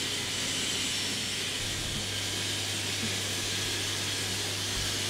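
Steady hiss with a low hum: workshop room noise.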